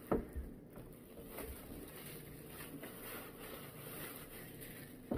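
A sharp knock just after the start, then faint, irregular handling noise.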